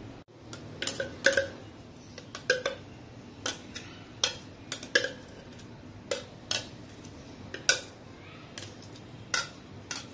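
Metal spoon knocking and scraping inside a glass grinder jar while scooping out freshly ground green chilli-and-coriander paste: a dozen or so sharp, irregular clinks, several with a short glassy ring.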